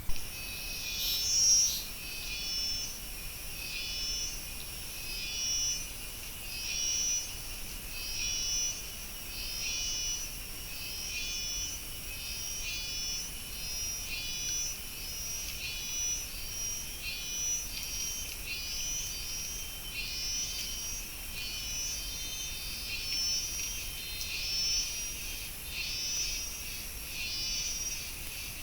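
An animal calling with short trilling pulses, repeated steadily about every one and a half seconds, after a brief sharp sound at the very start.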